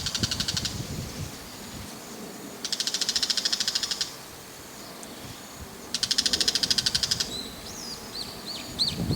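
Bull-headed shrike giving its harsh chattering ground call: three rapid rattling bursts of about a second each, a few seconds apart. Near the end come a handful of short, high, down-curving notes.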